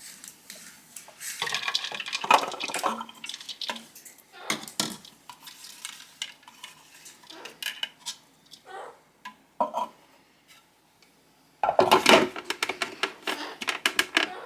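Kitchen utensils scraping and clattering against bowls and dishes as chopped greens are transferred. There are scattered knocks and scrapes, then a denser, louder run of clatter about two-thirds of the way in.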